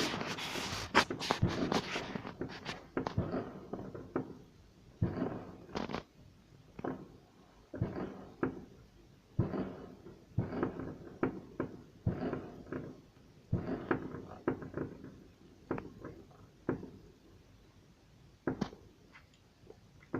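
Fireworks going off: a quick run of bangs at the start, then single bangs about once a second, each trailing off briefly.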